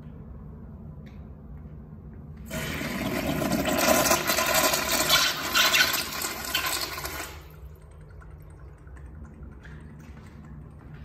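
Kohler Freshman urinal flushing through its flushometer valve: a loud rush of water that starts about two and a half seconds in and cuts off fairly sharply about five seconds later.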